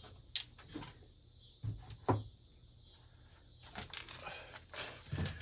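A few light knocks and rustles from a cork decoy being handled and taken down from a shelf, over a steady faint hiss.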